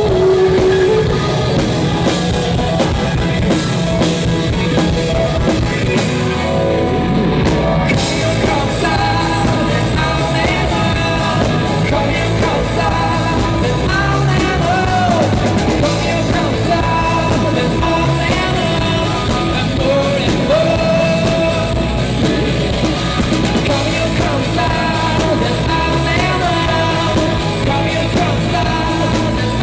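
Rock band playing live: drum kit, guitars and a lead singer.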